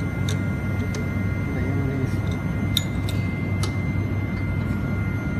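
PCB guide-hole drilling machine running: a steady low hum with a thin, constant high whine. A few light clicks and scrapes come from a brush sweeping drilling chips off the metal drill station.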